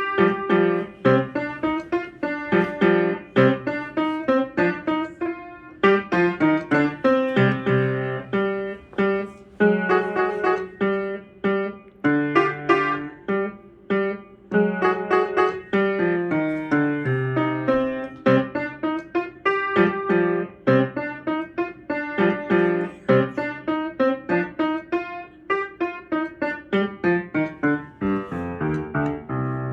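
Piano being played: a steady stream of single struck notes that ring and fade, in short phrases with brief pauses between them.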